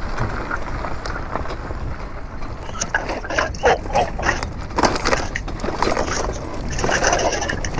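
Riding noise from an e-bike on a rough dirt trail: wind rushing over the microphone with the crunch and rattle of tyres over bumps. Knocks and clatter grow busier from about three seconds in as the track turns rough.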